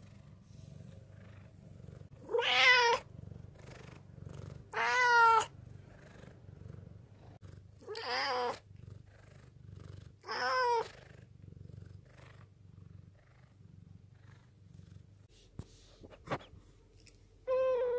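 Black domestic cat purring with a low steady rumble while it meows four times, each meow drawn out and two to three seconds apart, appealing for attention. The purring fades about two-thirds of the way through, and a fifth meow starts near the end.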